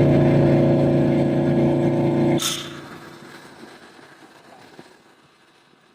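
Motorcycle engine running at a steady idle, then stopping suddenly with a click about two and a half seconds in and dying away.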